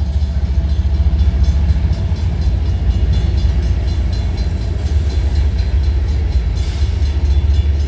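Empty covered hopper cars of a freight train rolling past, a steady loud rumble of wheels on rail with rapid, regular clicking.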